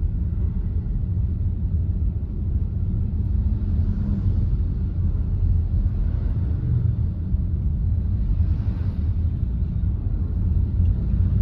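Steady low rumble of engine and road noise inside a moving car's cabin. The higher hiss swells gently twice.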